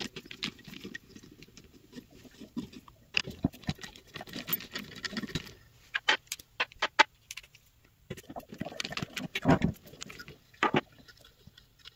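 A screwdriver with a socket bit turning out the small screws of a Lucas A115 alternator's brush box and regulator. Irregular scraping, rattling clicks of the bit working on metal, with small metal parts clinking on the bench.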